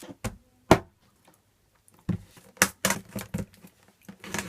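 A run of sharp clicks and knocks from objects being handled on a hard surface: two single knocks in the first second, then a quick cluster of them about two seconds in, and a few more near the end.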